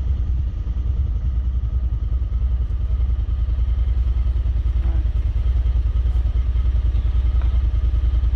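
Side-by-side UTV engine running steadily with an even, fast pulse and little change in speed.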